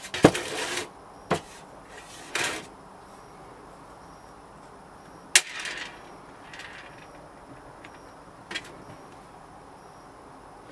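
Scattered sharp knocks and clicks of hard objects or tools being handled, about six in all, some followed by a short scrape, over a low steady background.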